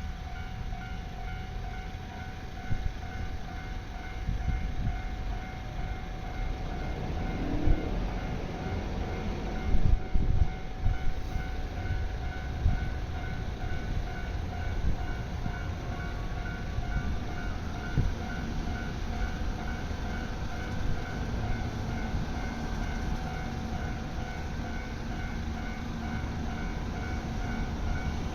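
Japanese railway level crossing's electronic warning bell ringing a steady, evenly repeated ding, while a train rumbles over the crossing with clacking wheels, loudest about eight to thirteen seconds in.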